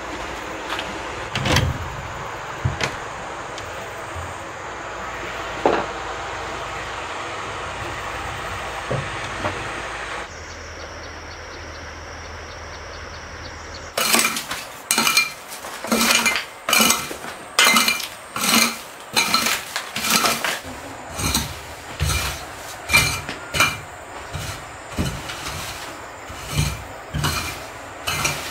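A small metal hoe scraping wood chips and sawdust across a dirt floor in short, repeated strokes, about one and a half a second, starting about halfway through. Before that there is a steady rushing background with a few knocks.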